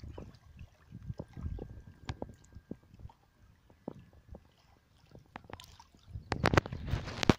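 Lake water sloshing and slapping against a small boat's hull, with irregular light knocks and a louder rush of water noise about six seconds in.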